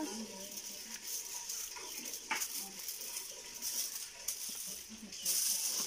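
Aluminium foil crinkling now and then as a large foil-wrapped pan is handled, loudest near the end, over a steady high hiss.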